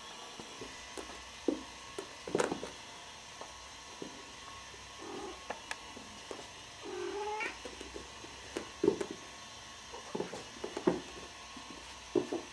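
Cats making short mewing calls, one rising in pitch about halfway through, among scattered knocks and scuffles from kittens playing.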